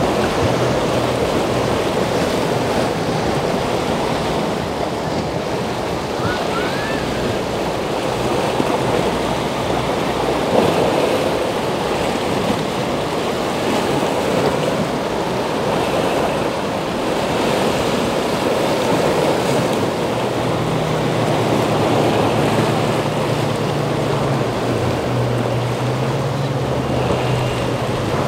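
Ocean waves breaking and surf washing, with wind buffeting the microphone. A boat engine's low, steady drone comes in about two-thirds of the way through.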